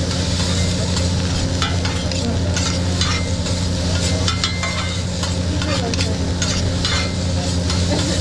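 Fried rice sizzling on a steel teppanyaki griddle while two metal spatulas repeatedly scrape and tap against the flat-top, chopping and stirring the rice, over a steady low hum.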